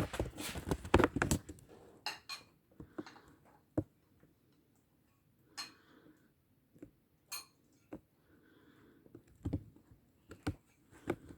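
Bowls and a spoon clinking and knocking while omelette ingredients are put together in a bowl. The knocks come in a quick cluster over the first couple of seconds, then one at a time with short quiet gaps between.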